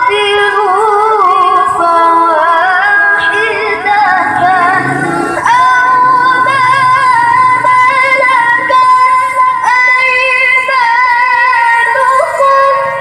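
A woman's voice reciting the Qur'an in the melodic tilawah style through a handheld microphone. She holds long notes decorated with wavering melismas, and the phrase fades out near the end.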